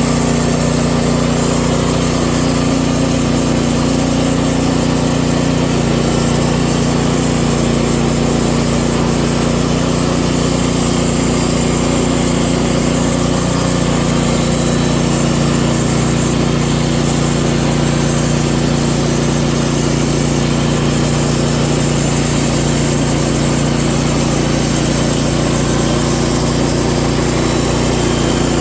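Wood-Mizer LX50 portable sawmill's gas engine and band-saw drive running steadily at a constant speed, an even mechanical drone.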